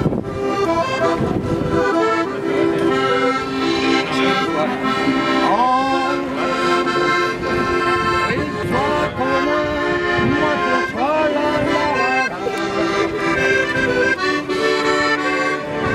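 Accordion playing a tune, a melody over held chords.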